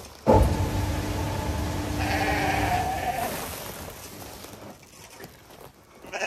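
Sheep bleating: long, overlapping calls that start suddenly and loudly just after the start and die away about three seconds in.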